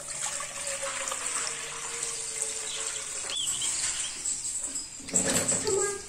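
Water running steadily into an enamel pot of peeled potatoes, followed about five seconds in by a louder clatter as the pot is handled.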